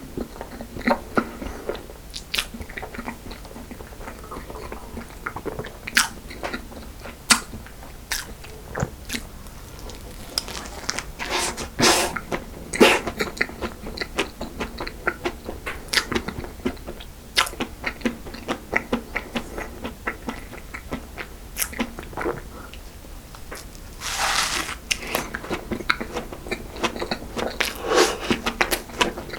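A person eating cream cake and crisp-topped choux pastry close to the microphone: wet chewing with many small crisp crunches and clicks scattered throughout. About 24 seconds in there is a brief, louder crackling burst.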